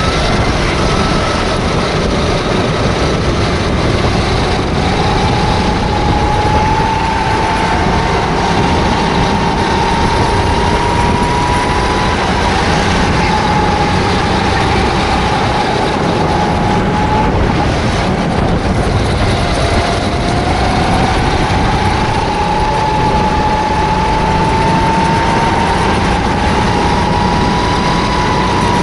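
Onboard sound of a Sodikart rental kart's engine running hard through a lap, over a steady loud rush of wind and road noise. Its pitch climbs slowly twice as the kart accelerates out of corners, falling back in between.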